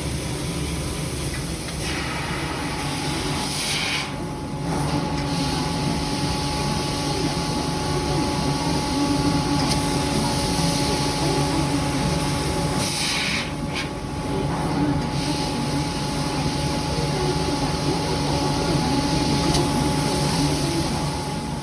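Workshop machinery running steadily with a constant whine and rumble, with two spells of louder hissing, one a few seconds in and one past the middle.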